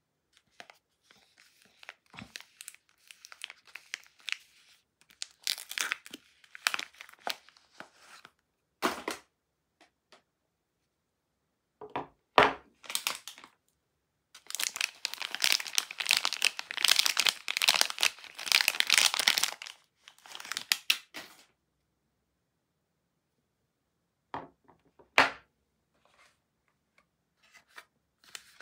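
Soap wrappers being torn open and crinkled by hand, in irregular bursts, with a long dense stretch of crinkling about halfway through. A few sharp knocks come between the bursts, as unwrapped bars are set down on the wooden table.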